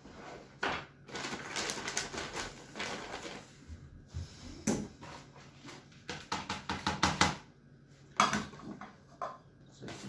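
Hemp seed being scooped and tipped into a plastic bag, the seeds rattling against the scoop and bag and the plastic crinkling, in several bursts of rustling and clicks with short pauses between.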